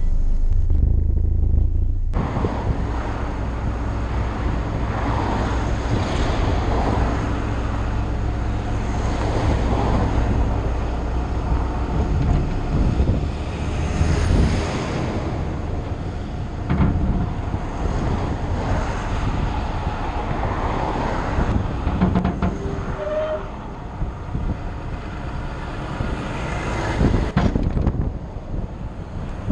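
Rushing wind and road noise on a camera mounted on the open bed of a moving flatbed truck, with lorries and cars running close behind and alongside. About two seconds in, it switches suddenly from a steady low in-cab engine drone.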